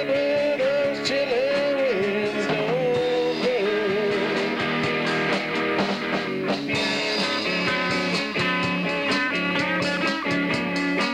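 Live rock band playing: electric guitars over a drum kit. A wavering, bending lead line stands out for the first few seconds, and the drums and cymbals get busier in the second half.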